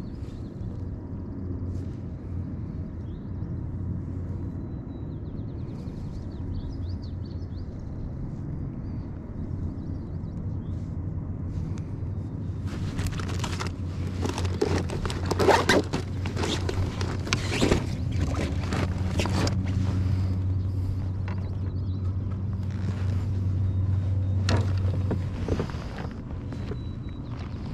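Kayak motor drive humming steadily at a low pitch; it gets louder about two-thirds through and eases off near the end. In the middle come bursts of rustling and rubbing as gloved hands and sleeves brush the microphone.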